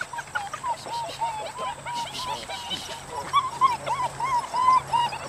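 Dutch Shepherd puppies yipping and whining in play: a rapid string of short, high-pitched calls, several a second, with a brief lull about halfway through.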